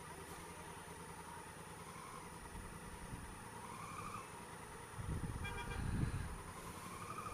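Honda Africa Twin CRF1000L's parallel-twin engine running at low speed in slow city traffic, with the rumble of the cars around it. From about five seconds in, wind buffets the microphone as the bike moves off, and a short beep sounds about half a second later.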